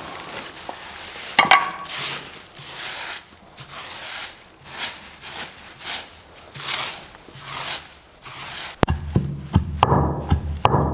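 Footsteps through leaf litter, about one step a second, each with a rustle. Near the end a sharp click, then quicker, heavier thuds and rustling.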